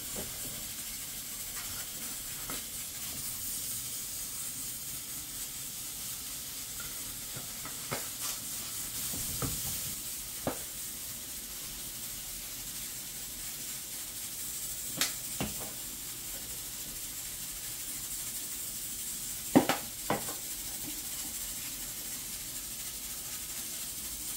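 Steady hiss of steam escaping from a stovetop pressure cooker's weighted valve. A few sharp knocks and taps come over it, the loudest a quick pair near the end.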